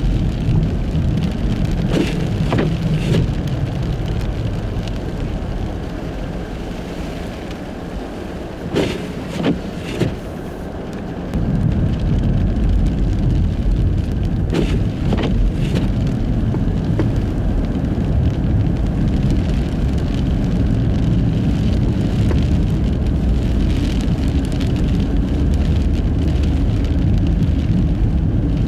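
A car, a Nissan Fuga Hybrid on studless tyres, driving on a snow-covered road: a steady low rumble of tyres and road noise with scattered thumps, a couple near the start, three around the middle and two a little later. The rumble eases for a few seconds and then comes back suddenly.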